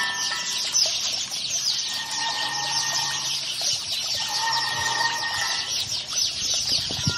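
Experimental sound-art performance: a dense, high chittering texture throughout, with held tones that swell in and fade twice in the middle and a brief low thump near the end.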